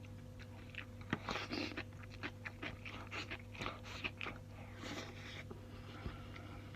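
Close-miked chewing of a mouthful of food: wet mouth sounds with many small crunches and clicks, dying away about a second before the end.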